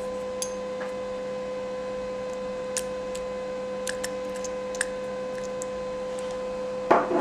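Steady pitched electrical background hum, with a few faint clicks as a plastic pump dispenser is pressed to squirt oil into a small glass beaker.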